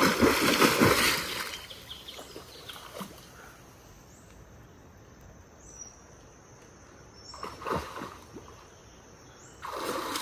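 Water splashing as a spearfisher dives under the river surface, dying away after about a second and a half. A quiet stretch follows with a faint high, thin call and a few short chirps, then brief splashes again later on and near the end.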